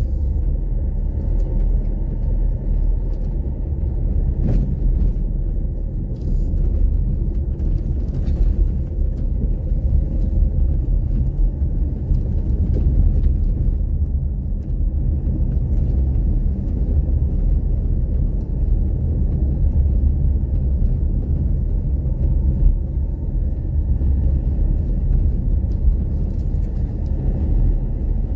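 Steady low rumble of a vehicle driving along a road, engine and road noise together, with a few faint knocks.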